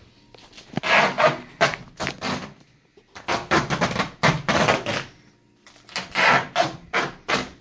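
Duct tape being pulled off the roll in three long ripping pulls, each a harsh, crackling tear lasting one to two seconds.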